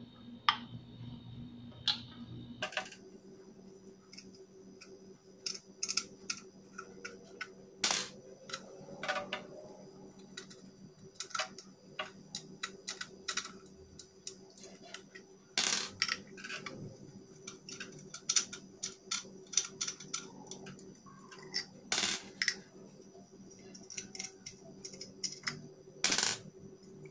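Irregular metallic clicks and scrapes of a metal hand tool working against the aluminium valve head of a GOMCO 3060 diaphragm suction pump, picking out caked dirt that has clogged its flapper valve and left the pump weak.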